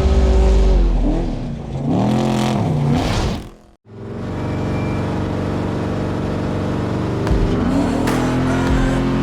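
Off-road race vehicle's engine revving, its pitch swinging up and down, then a brief drop-out about four seconds in. After that the engine runs steadily at high revs, climbing in pitch once more near the end.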